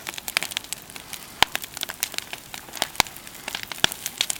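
Wood bonfire burning with a load of magnesium shavings in it, crackling with many irregular sharp pops, a few of them louder than the rest.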